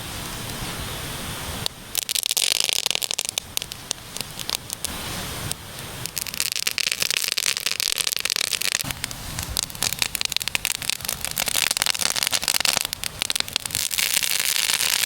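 Campfire crackling and popping, a steady run of sharp snaps over a hiss that grows denser about two seconds in and again around six seconds in.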